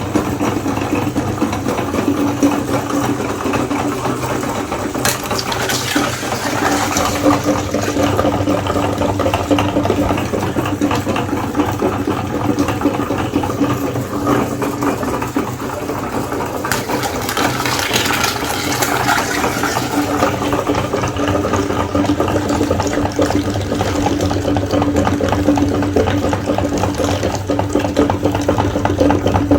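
Meat grinder running steadily with a constant motor hum, grinding eggs fed through it.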